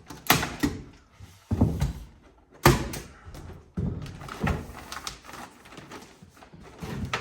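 Sharp knocks and thuds at uneven intervals, with softer rustling between them, as roof insulation baffles are handled and fitted between rafters.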